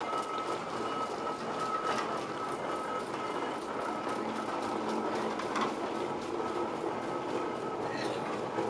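Steam locomotive approaching under power, its exhaust beating in rapid, even beats over a steady hiss of steam.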